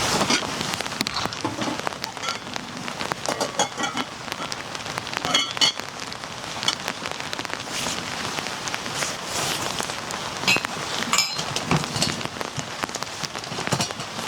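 Rain falling steadily, with many irregular sharp taps of drops striking a nearby surface.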